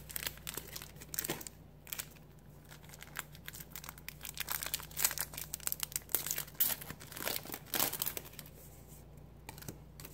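Foil Pokémon booster pack wrapper being torn open and crinkled in the hands, a dense run of sharp crackles that dies away near the end.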